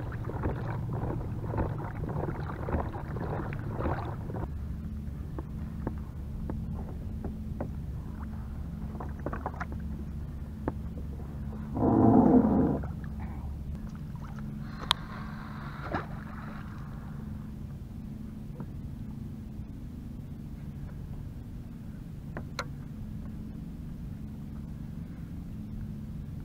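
Hobie Revolution pedal kayak under way on calm water: a steady low hum of the pedal drive and water along the hull, with splashing and rustling for the first few seconds. A brief, loud pitched tone comes about twelve seconds in, and there are scattered light clicks.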